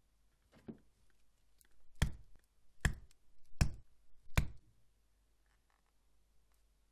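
Mallet blows on a leather stitching chisel (oblique pricking iron) driving it through 1.2 mm leather into the plastic board beneath: one light tap, then four hard sharp knocks about a second apart, each with a dull thud.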